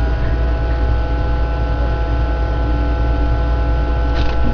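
Steady electrical hum: a strong low drone with several thin, steady higher tones over it, cutting off abruptly at the very end.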